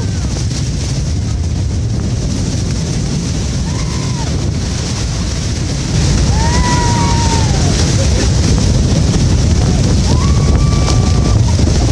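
Loud, steady roar of Niagara's Horseshoe Falls heard from a tour boat close under the falls, with wind and spray buffeting the microphone. The roar grows louder about six seconds in as the boat draws nearer.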